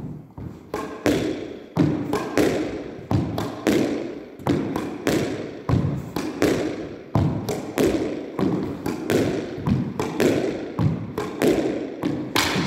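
Squash ball being rallied solo down the backhand wall: racket strikes, the ball smacking the front wall and bouncing on the wooden court floor, in a steady rhythm of sharp thuds more than once a second.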